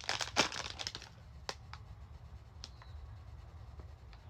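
Plastic packaging crinkling and tearing for about a second, then a few light, separate clicks and taps as it is handled.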